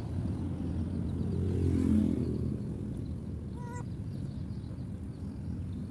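A vehicle passing on the road, its engine rumble swelling to a peak about two seconds in and then fading, over a steady low traffic rumble. A single brief high call sounds about three and a half seconds in.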